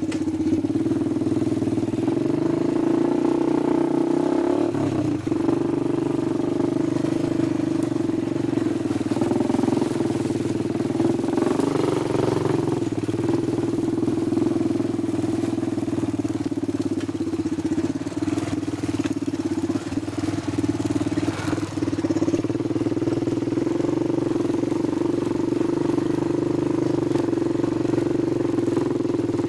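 Honda 250EX ATV's single-cylinder four-stroke engine running through a White Brothers full aftermarket exhaust, holding a steady low-rev note that swells slightly a few times.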